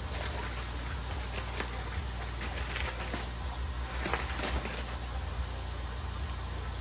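Pieces of model railroad track being handled, giving scattered light clicks and rattles over a steady low hum.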